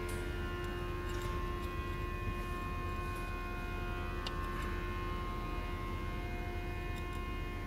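Steady machine hum with several steady tones held throughout, and a few faint clicks, the clearest about four seconds in.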